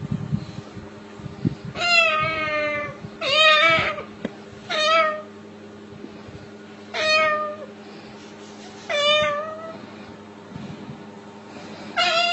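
A series of six meowing calls, each about half a second to a second long and a second or two apart, over a low steady hum.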